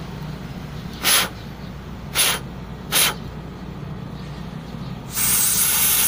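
Mouth-blowing through a removed fuel-line banjo bolt to clear dirt from its passage: three short puffs of air, then a long steady blow starting about five seconds in, the air now passing through.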